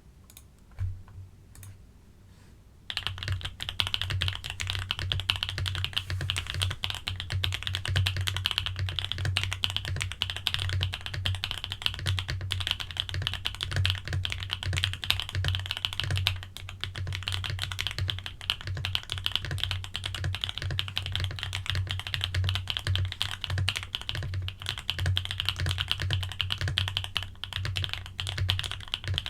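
Monsgeek M3 mechanical keyboard with lubed Akko V3 Cream Yellow Pro linear switches, case foam and tape mod, being typed on. A few single keystrokes, then fast continuous typing from about three seconds in.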